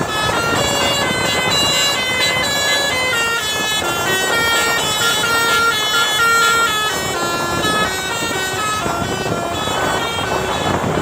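Multi-tone telolet bus horn playing a melody of held notes that step up and down, over steady vehicle noise.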